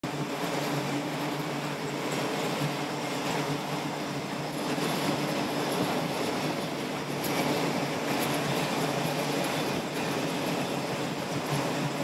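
Jet engine noise on an aircraft carrier flight deck: a steady rushing noise with a low hum and a thin high turbine whine above it, holding level throughout.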